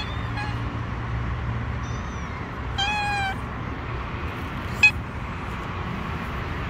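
Young kitten meowing: a few short mews, the clearest a slightly falling one about three seconds in, with a brief sharp squeak near five seconds in, over a steady low hum.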